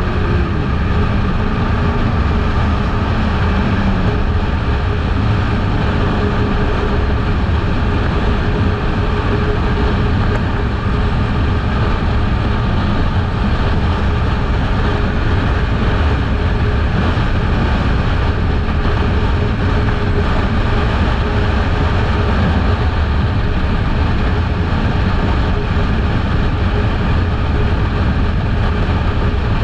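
Kawasaki Eliminator 500 motorcycle under way at a steady speed: the engine running with a deep, even drone, mixed with a constant rush of wind and road noise.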